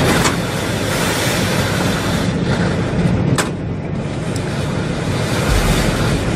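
Gale-force wind buffeting the microphone over the roar of heavy seas around a ship, a steady loud rush. Two sharp knocks cut through it, one just after the start and another about three seconds later.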